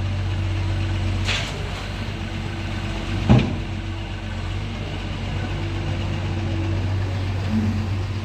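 Doosan DX140 excavator's diesel engine running steadily. A brief hiss comes about a second in, and a sharp clunk about three seconds in.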